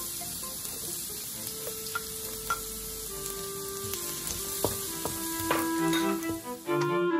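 Chopped garlic sizzling in hot oil in a wok, with a few scrapes and knocks of a wooden spatula stirring it. The sizzle cuts off just before the end.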